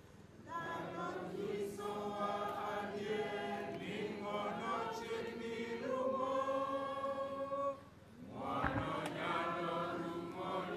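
A group of voices singing a slow Luo hymn together, in long held notes with no beat, with a short break about eight seconds in.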